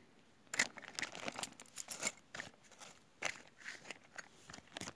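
Hands handling shotgun-shell reloading gear: a run of irregular sharp clicks and rustles starting about half a second in.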